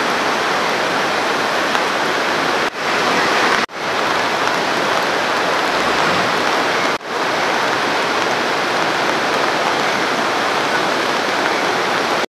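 Steady rush of the flood-swollen Kali Gandaki river, a churning mass of muddy water, broken by three brief dropouts where the sound cuts out and fades back in.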